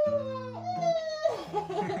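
Shiba Inu howling: two drawn-out, slowly falling howls in the first second and a half, over background music with low held notes.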